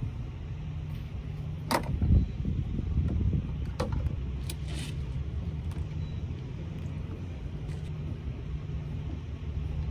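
Steady low rumble with a sharp click just under two seconds in and a few fainter clicks around four to five seconds, as a plastic hood bug deflector is held up and fitted with screws against the truck's hood.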